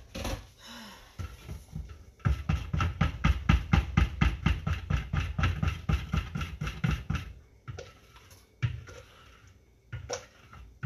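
Hand-held stick blender churning soap batter in a plastic pitcher, mixing lye and oils toward trace. It starts about two seconds in as a rapid rhythmic churning of about five or six pulses a second for about five seconds, then two shorter bursts near the end.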